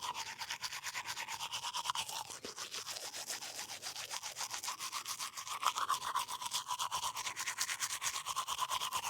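Toothbrush scrubbing teeth in quick, even back-and-forth strokes, several a second, with a bristly, wet scratching sound.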